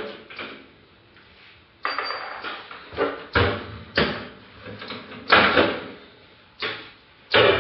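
Metal desktop computer case being handled: a series of clanks and scrapes as the tower is laid on its side and its metal side panel is slid off and lifted away.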